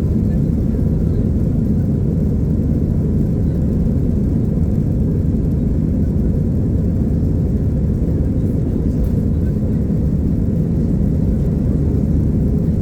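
Steady low rumble of an Airbus A320's jet engines and the airflow around it, heard from inside the cabin, with no change in level or pitch.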